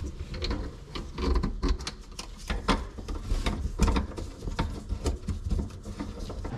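Irregular clicking and scraping of a faucet wrench on the faucet's mounting nut as it is turned on the underside of a stainless steel sink, tightening the faucet base plate down.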